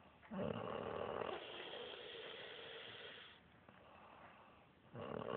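A woman snoring: one long rattling snore of about three seconds, a quieter breath, then the next snore starting near the end.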